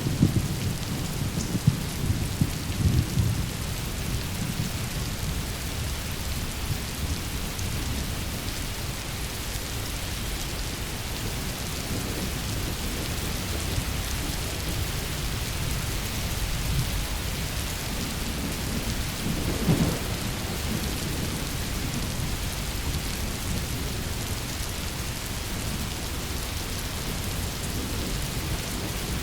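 Thunderstorm: steady heavy rain falling, with low rolling rumbles of thunder at the start and again about two-thirds of the way through.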